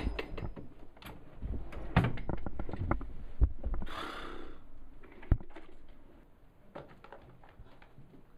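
Knocks and thuds of someone sitting down and handling things at a wooden reception desk; the sharpest come about two, three and a half and five seconds in, with a short rustle about four seconds in. It is quieter after about six seconds.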